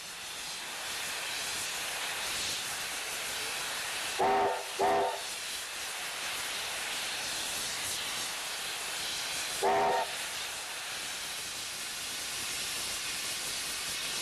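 New Zealand Railways JA-class steam locomotive blowing off through its lifting safety valves, a steady loud hiss that shows the boiler has reached full working pressure. The whistle sounds over it in two short toots about four seconds in and one more near ten seconds.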